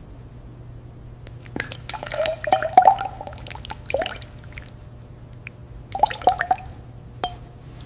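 Liquid dripping and splashing in irregular clusters of drops, the busiest stretches about a second in and again near six seconds in, over a faint steady low hum.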